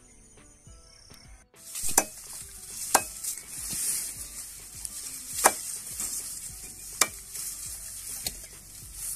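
A sickle chopping red Napier grass canes into short planting setts against a wooden log. There are about five sharp, irregular chops, roughly one every second or two, with dry stalks rustling in between.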